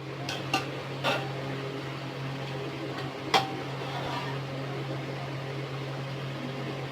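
Onions frying in hot oil, a steady sizzle over a low hum, with several sharp metal clinks of a spoon against the pan as the fried onions are lifted out. The loudest clink comes about a third of the way in.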